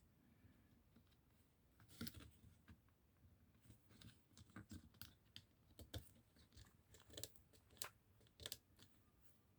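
Faint, irregular clicks and knocks of hands handling washing machine parts. About a dozen sharp taps start about two seconds in.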